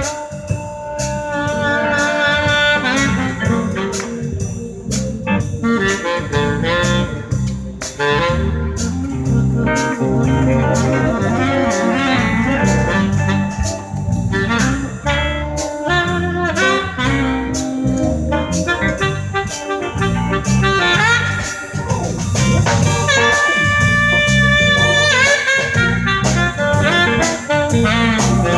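Live blues band playing an instrumental break: a saxophone lead line over drums, bass guitar and keyboard.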